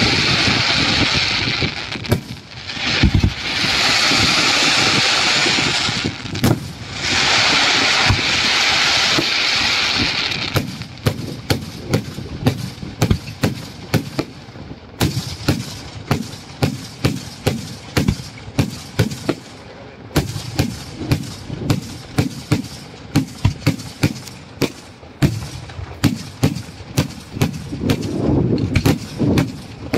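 Daylight aerial fireworks: a loud hissing rush in three long stretches, then from about ten seconds in a rapid barrage of sharp bangs, several a second, as shells burst overhead.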